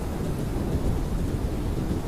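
Blizzard wind blowing steadily, a dense, deep rush of noise with a fainter hiss above it.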